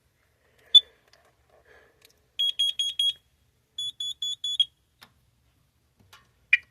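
Carbon monoxide alarms beeping: two groups of four quick, shrill beeps with a pause between, after a single beep. This four-beep pattern is the standard carbon monoxide alarm signal, set off here by test gas.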